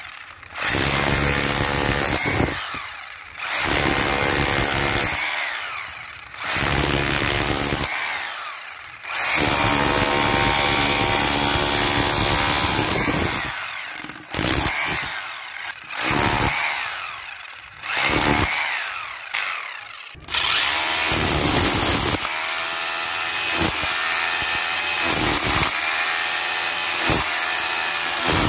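Bosch GBH 220 rotary hammer driving a pointed chisel bit into a concrete block. It runs in short bursts of one to three seconds, each fading as the trigger is let go. About two-thirds of the way through it switches to a long steady run, chiselling into brick.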